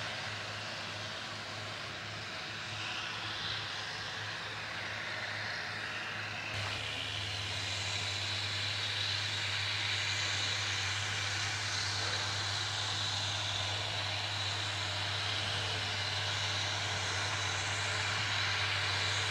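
Tractor engines working under load across a field, a steady distant drone over a constant low hum. The sound changes abruptly about six and a half seconds in and grows slightly louder toward the end.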